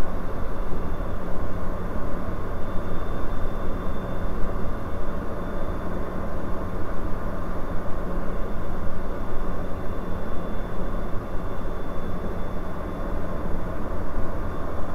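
Bristell NG5 light aircraft's engine and propeller running steadily, heard inside the cockpit, with a faint steady high whine over the low drone.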